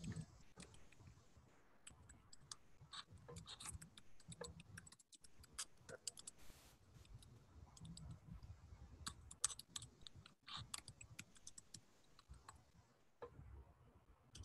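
Faint, irregular clicking of a computer keyboard and mouse being worked, with a brief silent gap about five seconds in.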